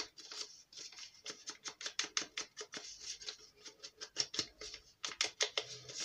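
Foam-pad ink blending tool swiped over the edges of a folded paper envelope in quick repeated strokes, several a second, a scratchy brushing against the paper.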